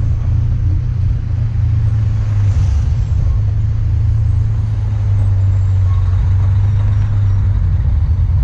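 Motorcycle riding along a street: a steady low engine drone mixed with wind rumble on the handlebar-mounted camera's microphone.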